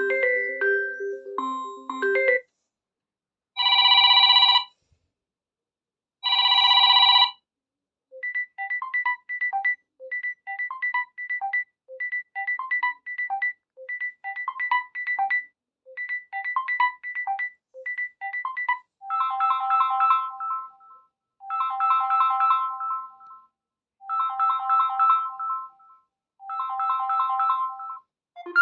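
Samsung Galaxy Tab A7 Lite stock ringtones played one after another. First comes the end of one tune, then two long electronic tones, then a fast repeating figure of short notes. Near the end there are repeated chord-like phrases about two seconds long, with brief gaps between them.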